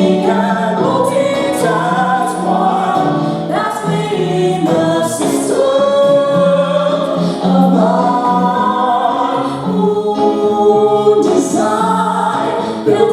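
Voices singing a song from a live stage musical, with sustained low notes underneath.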